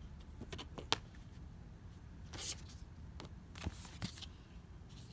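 Cards and paper being handled in a cardboard box: scattered rustles and light clicks, with a sharp click about a second in.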